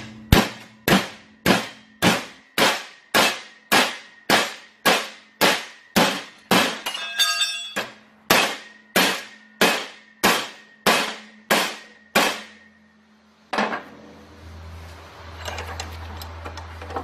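Sledgehammer blows on a 3/8-inch stainless steel rod clamped in a bench vise, bending it over to 90 degrees: a steady run of ringing metal-on-metal strikes, about two a second with one brief pause, stopping near the end. Then a single knock and a faint low hum.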